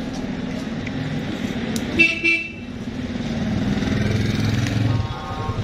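Street traffic: a vehicle engine running, with a horn giving two short toots about two seconds in. The engine grows louder afterwards.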